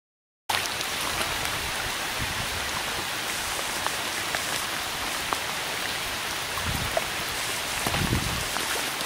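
Steady rain falling, a dense even hiss dotted with small drop ticks, cutting in abruptly about half a second in. Two short low thumps come near the end.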